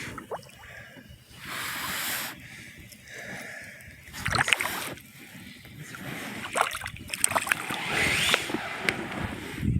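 Water splashing and sloshing against a small inflatable raft, with irregular knocks and rustles from handling in the boat.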